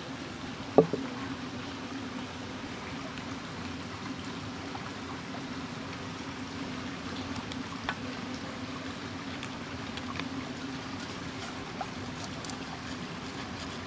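A river or stream flowing steadily. A single sharp knock comes a little under a second in, followed later by a few faint clicks.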